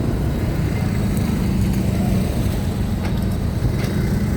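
Steady low rumble of heavy diesel engines, from trucks and the ferry at a loading ramp, with a few faint clicks about three seconds in.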